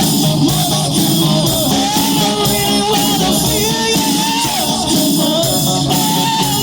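Rock band playing, with a sung lead vocal over guitar and drums at a steady beat.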